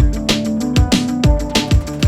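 Background music: electronic dance track with a steady, fast kick-drum beat and sustained synth notes.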